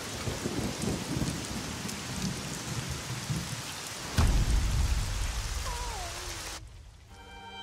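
Heavy rain falling steadily, with a sudden loud thunderclap about four seconds in that rolls on as a low rumble. A short wavering, falling tone is heard near six seconds, and the rain cuts off abruptly soon after.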